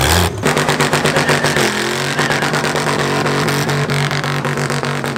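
Car engine running close by at a steady speed with a rapid, even pulsing, rising briefly in pitch about two seconds in.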